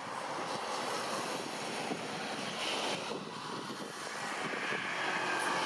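Jet engines of a taxiing Airbus A330 airliner running at low thrust, a steady, even rushing noise.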